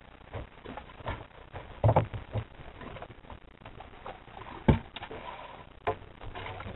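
Irregular knocks and clicks of fishing gear being handled against a boat's rail and deck as the angler works his rod and takes the line in hand, with the loudest knock about two-thirds of the way in.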